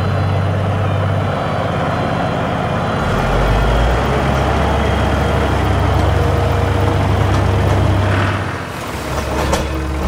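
Heavy vehicle engine sound effect running steadily with a low hum that shifts lower about three seconds in and dies down near the end, followed by a few sharp clicks.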